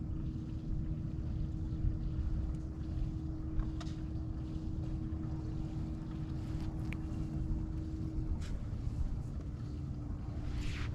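Steady low hum of a boat motor under wind rumbling on the microphone. The hum dips slightly in pitch about eight seconds in, and there are a few faint ticks.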